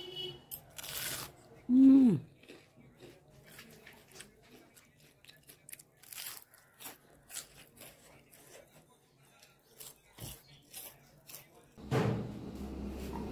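Fried potato and pointed-gourd chops being bitten and chewed, heard as scattered soft crunches and clicks. About two seconds in comes the loudest sound, a short tone that slides down in pitch. Near the end a steady low background noise comes in abruptly.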